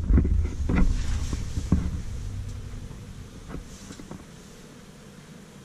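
Ride inside the cab of a 1974 ValmetSchlieren traction elevator: a low rumble with a few clunks as the car travels down. It fades away over the first few seconds as the car slows and stops at the lowest floor.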